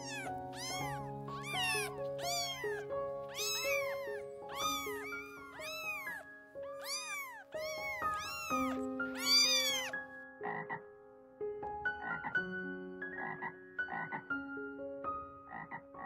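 A domestic cat meowing over and over, about a dozen rising-and-falling meows, then from about ten seconds in a tree frog calling in a steady series of short croaks, over soft background music.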